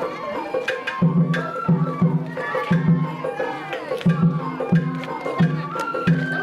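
Sawara-bayashi festival music from a float's hayashi ensemble: a bamboo flute plays held, sliding notes over a steady taiko drum beat of about three strokes a second, with sharp clicks on top.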